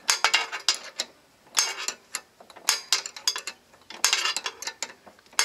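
Wrench turning a bolt on a ride-on mower go-kart's steering linkage: repeated short bursts of rapid metal clicking, roughly one burst a second.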